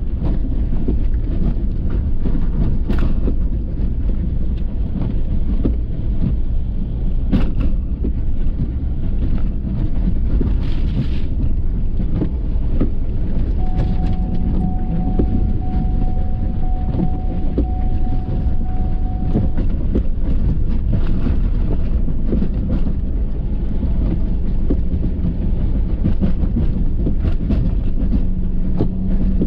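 Ford F-350 pickup running steadily while plowing snow with a Boss plow, a continuous low rumble with a couple of sharp knocks in the first eight seconds. A steady high tone sounds for about six seconds midway.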